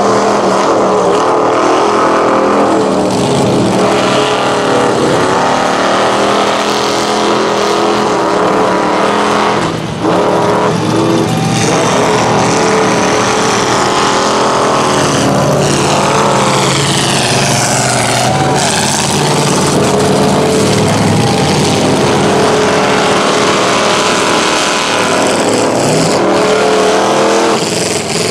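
Lifted mud trucks on oversized tires running hard through a shallow mud pit, engines revving and tires churning through water and mud. The engine pitch rises and falls throughout, and one truck passes close in the second half.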